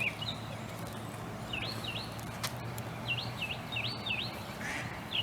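Small birds chirping: short, high, swooping chirps in little groups of two or three, repeated several times, over a faint steady low hum.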